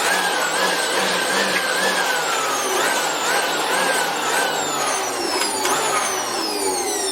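Makita blower running, its motor whine repeatedly jumping up in pitch and sagging as the trigger is squeezed in pulses to blow dust out of a printer. Near the end the pitch falls steadily as the motor slows.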